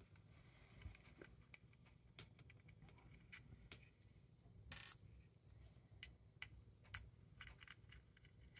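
Near silence broken by scattered faint clicks and taps as the small metal and plastic parts of an opened handheld radio are handled with fingers and a small tool, with one slightly louder tick about halfway through.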